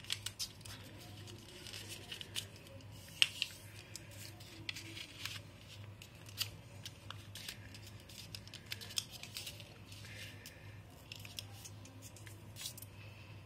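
A square sheet of origami paper being folded and creased by hand: scattered short crackles, rustles and taps of the stiff paper, over a faint steady low hum.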